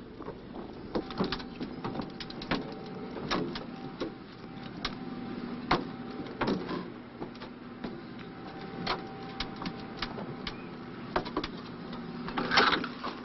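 Irregular clanks, clicks and knocks of paratroopers and their gear boarding a transport aircraft, with a faint steady hum that comes and goes.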